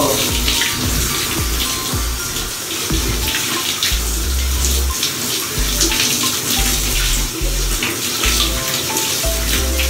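Water running steadily as shampoo is rinsed out of hair.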